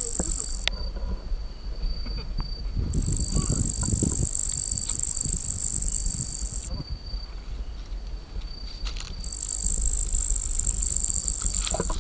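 Night insects calling: a high buzzing chorus that stops about half a second in, sounds again from about three to seven seconds, and returns near the end, over a steady thin high trill. A low rumble runs underneath.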